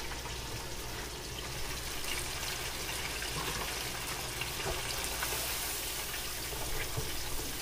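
Chicken strips frying in 350 °F oil in an electric countertop deep fryer: a steady bubbling sizzle, with a few light knocks as the lid comes off and the wire basket is lifted out of the oil.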